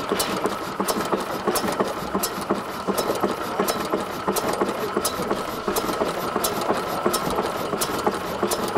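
Small 0.5 hp Reform stationary gas engine running steadily, a mechanical clatter with sharp clicks a few times a second.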